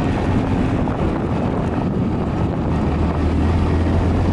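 Honda Monkey 125's single-cylinder four-stroke engine running steadily under load in second gear at about 20 mph up a hill, mixed with heavy wind noise on the microphone. A low engine note holds steady and grows a little stronger about halfway through.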